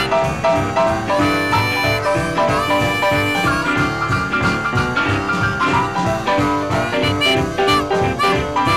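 Instrumental background music with a steady beat and a melodic lead line.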